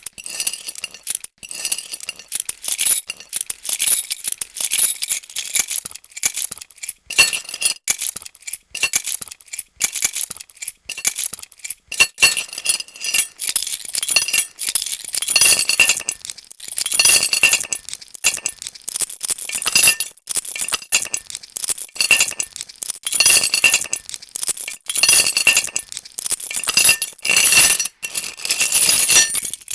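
A bunch of metal keys jangling and clinking, shaken in uneven bursts of bright, ringing jingles.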